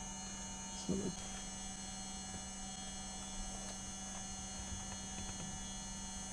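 Steady low electrical hum with a faint high whine from an aircraft's electrics running on battery power. A brief murmur comes about a second in.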